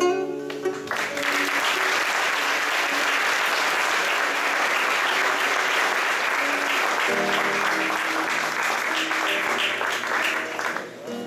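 Audience applauding, starting about a second in and stopping near the end, over an acoustic guitar playing softly underneath.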